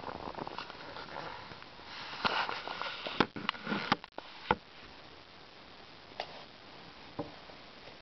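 Paper pages of an old book rustling as it is handled, then a cluster of sharp knocks and taps about three to four and a half seconds in as the book is closed and set down on a wooden table, with a couple of faint taps afterwards.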